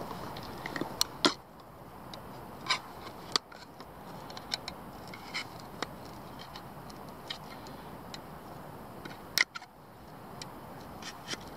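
A large knife punching into and levering open the lid of a tuna tin that has no ring pull: irregular sharp metallic clicks and taps, the loudest about nine and a half seconds in.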